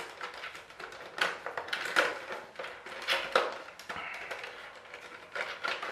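Hard plastic toy truck being handled and its chassis worked loose from the body: irregular clicks, creaks and scrapes of plastic on plastic, the sharpest about one, two and three seconds in, with another few near the end.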